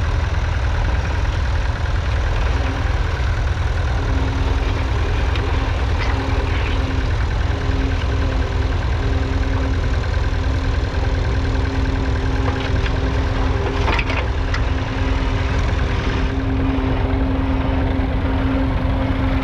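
1968 David Brown 780's 2.7-litre three-cylinder diesel engine running steadily, with a steady higher whine coming in about four seconds in.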